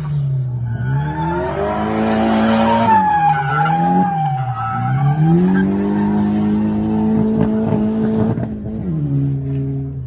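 Drift car's engine revving hard through a slide, its pitch climbing and holding high, dipping briefly twice in the middle before climbing again, with tyres squealing under wheelspin. The revs fall away near the end.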